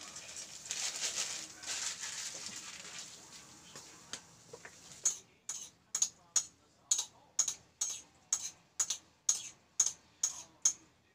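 A fork clicking against a ceramic bowl as noodles are mixed, sharp taps about two to three a second from about five seconds in. Before that, a fluctuating hiss from the noodle pot on the gas stove fades out.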